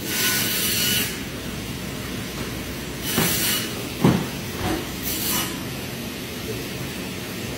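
Boning knife slicing and scraping through raw chicken on a plastic cutting board: three short scraping hisses and a sharp knock about four seconds in, over steady background noise.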